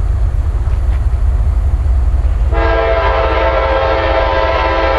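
Approaching freight locomotive's air horn sounding one long, steady multi-note blast, starting about halfway through, over a steady low rumble.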